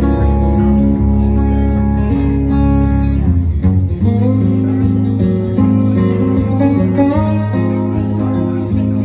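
Two acoustic guitars playing together live, ringing chords and melody notes over a bass line that moves to a new chord about four seconds in.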